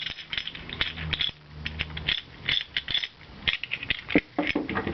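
Metal bicycle headset cups and press hardware clinking and rattling as they are handled, an irregular run of sharp clicks and light knocks.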